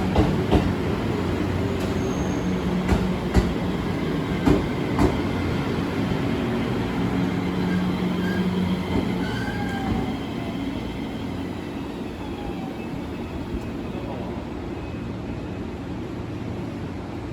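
JR Shikoku 7000 series electric multiple unit rolling slowly into a terminus. Its wheels knock over rail joints a few times in the first five seconds, with faint wheel or brake squeal. After about ten seconds it settles to a quieter steady hum as it comes to a stop.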